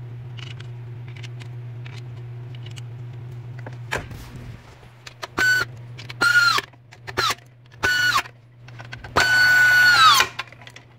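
Power screwdriver driving the screws that hold the cover onto a pond pump's impeller housing: from about halfway, five short high whines, each dropping in pitch as it stops, the last about a second long. Before them, a steady low hum.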